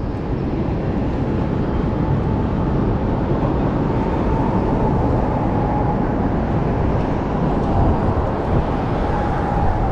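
Steady low rumble and hiss of city street noise, with a faint whine that comes in about four seconds in and again near the end.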